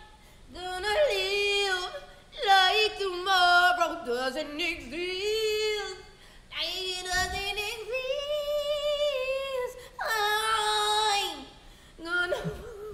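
A woman singing unaccompanied in several long held phrases with vibrato, flipping her voice in little yodel-like breaks at the ends of the lines.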